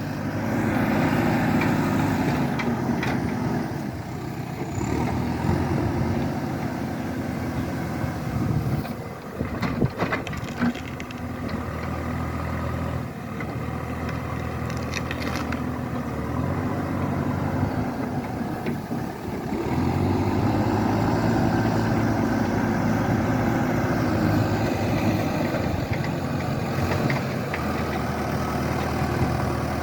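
An engine running steadily, its speed and loudness changing a few times, with a few sharp clicks about ten seconds in.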